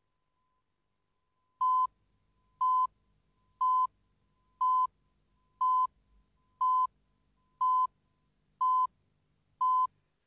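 Countdown leader beeps: a short beep at one steady pitch once a second, nine beeps starting a little under two seconds in, each beep marking one number of the countdown.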